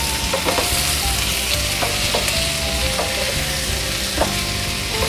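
Potato and capsicum sabzi sizzling in a frying pan while a wooden spatula stirs it, with short scrapes and taps against the pan.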